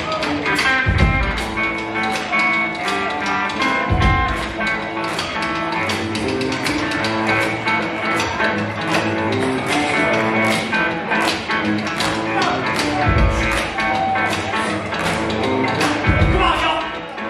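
Live blues-rock band playing: electric guitar over a steady drum beat and bass.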